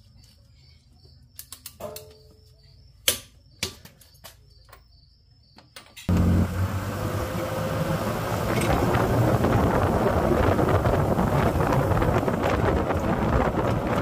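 A ratchet wrench working a bolt on the Jeep's rear suspension gives a few sharp clicks, the loudest about 3 seconds in, while a cricket chirps steadily. About 6 seconds in this gives way to a loud, steady rush of wind and road noise on a camera mounted outside the moving Jeep Wrangler.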